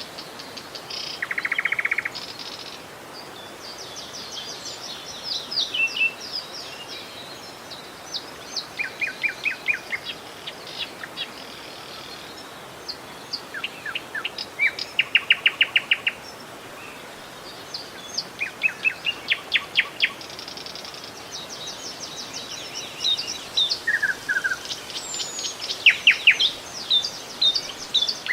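Several birds singing and calling in quick runs of repeated high chirps, one after another, over the steady rush of flowing river water.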